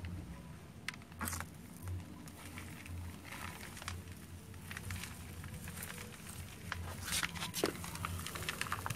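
Hands pressing and working coarse, dry potting medium around an adenium in a plastic pot: irregular rustling and crackling, busiest about a second in and again near the end.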